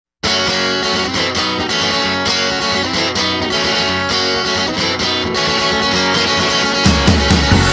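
Guitar music with strummed chords, starting just after the opening; a heavier bass line comes in near the end.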